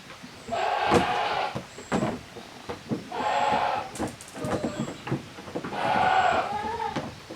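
Young goat kids bleating: three long, wavering calls about two seconds apart, with a few sharp knocks between them.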